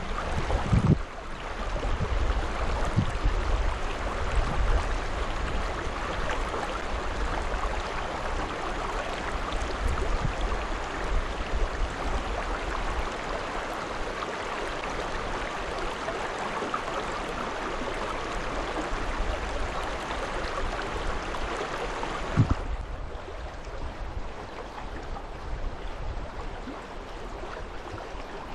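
Rushing river water, a steady hiss of current, with low rumbling bumps of wind or handling on the microphone. About three-quarters of the way through it cuts abruptly to a quieter, duller water sound.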